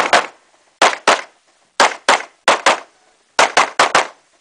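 Pistol shots fired rapidly in close pairs, two quick shots about a quarter second apart and the next pair under a second later: about a dozen shots in all, the shooter putting two rounds on each target in turn.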